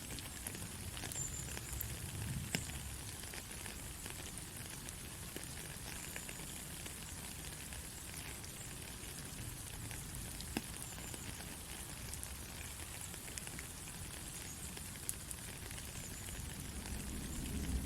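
Steady light rain: an even hiss with scattered sharp drop ticks.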